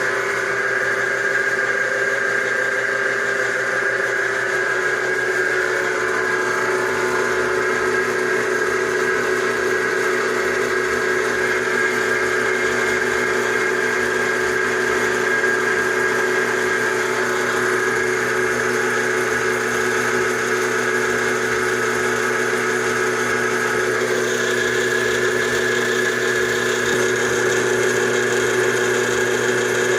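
Homemade bench drill's electric motor running steadily with a constant hum and whine. About 24 seconds in, the sound shifts and a higher hiss joins it.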